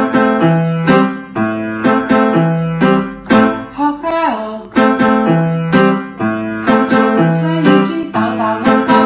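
Background music with keyboard chords struck in a steady rhythm about twice a second over a bass line. A short falling pitch glide comes about four seconds in.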